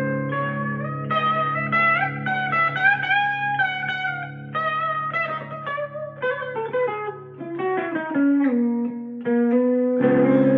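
Schecter Demon-6 electric guitar on its active bridge pickup playing a melodic lead line high up the neck over a ringing low note. The line descends in a run and ends on a freshly struck chord, with a few slips in the playing.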